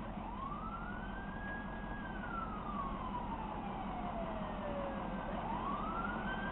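Emergency vehicle siren on a slow wail: the pitch rises over about a second and a half, falls slowly for several seconds, then starts rising again near the end, over a steady low hum.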